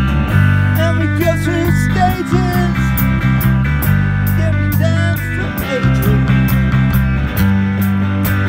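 Live rock band playing loud: an electric bass holding heavy notes, a drum kit with steady cymbal strikes, and a man's voice singing through a microphone in the first half.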